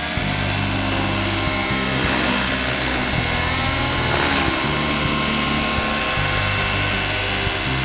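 Radio-controlled scale Alouette III model helicopter flying low and steady, its rotor and motor running with a continuous whine.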